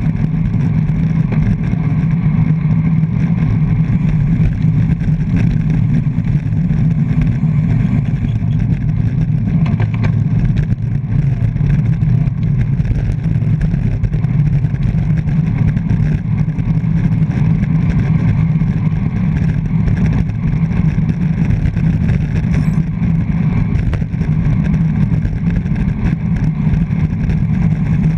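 Loud, steady wind rumble on the microphone of a GoPro mounted on a road bike's handlebars, riding at race speed in a pack.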